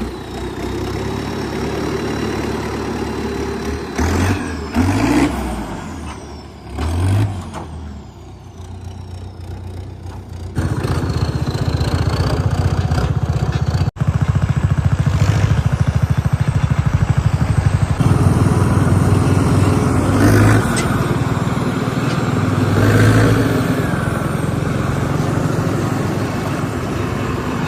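Diesel tractor engine running as the tractor pulls a hitched cart. About ten seconds in it becomes louder, with an even, pulsing low drone.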